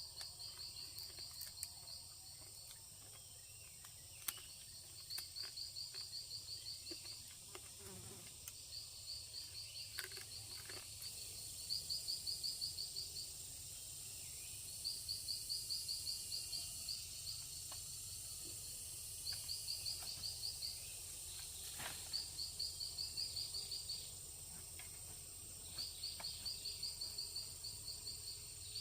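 Insects calling outdoors: high, fast-pulsed trills of one to two seconds, repeated every few seconds, over a steady high-pitched insect drone.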